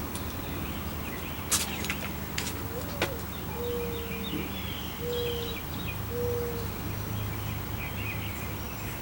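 Birds calling outdoors: a low cooing call of four notes, the first rising and falling and the next three level, about a second apart, with scattered high chirps over a steady low hum. A few sharp clicks in the first few seconds.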